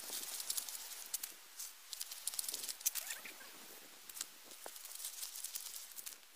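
Loose gravel and small stones clattering in quick, irregular clicks as creek-bed dirt is scooped by hand into a bucket.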